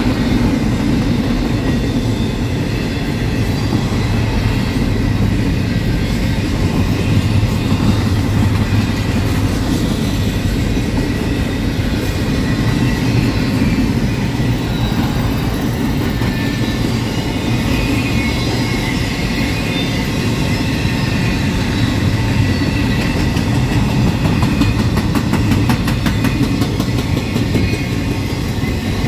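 Freight train of double-stack container well cars rolling past close by: a steady rumble of steel wheels on rail, with clickety-clack over the rail joints that is most noticeable near the end, and faint high wheel squeal at times.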